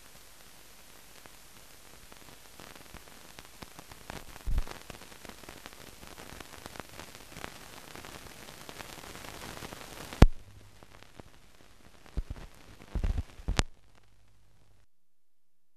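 Hiss and crackle of a blank film soundtrack: steady hiss with scattered clicks, a loud pop about ten seconds in and a few low thumps after it, then the sound cuts off to dead silence near the end.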